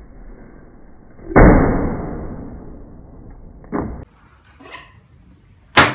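A heavy blade chopping into a full plastic bottle: one loud sudden strike about a second and a half in, followed by a noisy tail that fades over about a second. A shorter strike comes near four seconds, and another sharp, loud blade strike comes just before the end.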